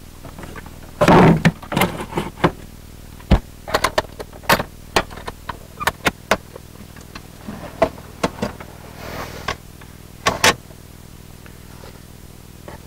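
Portable car fridge's lid and latches being handled, with a loud clunk about a second in, a run of clicks and knocks, and a loud double knock near the end.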